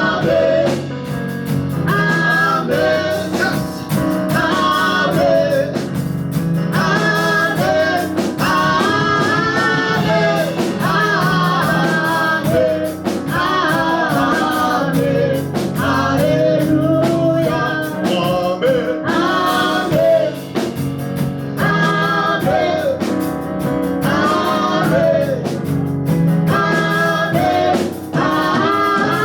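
Gospel praise and worship song: voices singing a melody over steady instrumental accompaniment.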